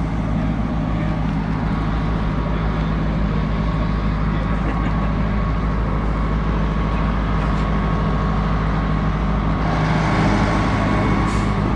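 Diesel engine of a large Caterpillar wheel loader running steadily with a low hum, getting a little louder near the end.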